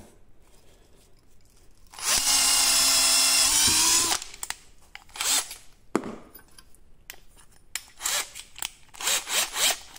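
Bosch GSR 120-LI 12 V cordless drill running in second gear for about two seconds as a 6 mm bit bores through a wooden beam: a steady motor whine whose pitch dips slightly under load just before it stops. Short clicks and handling noises follow.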